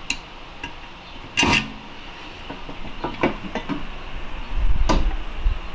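Flathead screwdriver prying at a snap ring in a transmission case: a few separate metal clicks and scrapes, the loudest about one and a half seconds in, with a low bump near the end.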